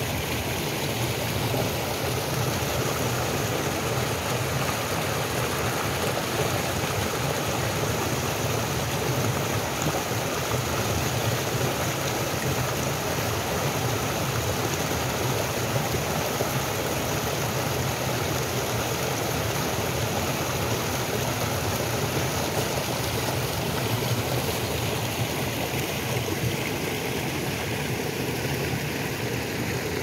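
Mountain stream rushing over rocks and spilling in small cascades into a shallow pool: a steady, even rush of water.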